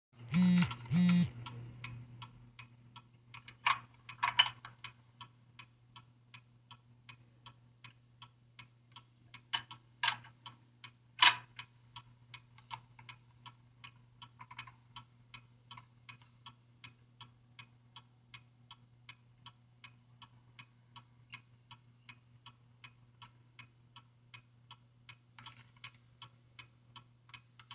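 A car's turn-signal indicator ticking steadily, about three ticks a second, over a low steady hum. Two short loud sounds open it, and a few louder clicks come around four and eleven seconds in.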